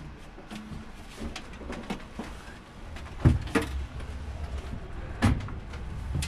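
A series of knocks and clicks over a low rumble, the two loudest thumps about three and five seconds in.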